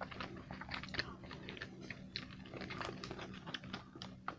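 Close-miked chewing of a crispy dark-chocolate orange stick with corn flakes in it: faint, irregular small crunches and mouth clicks.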